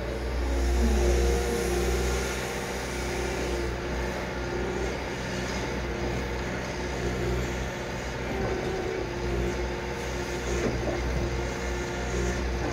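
Liebherr 936 crawler excavator's diesel engine running steadily as the machine swings round and digs with its bucket: a continuous low drone with a steady hum above it.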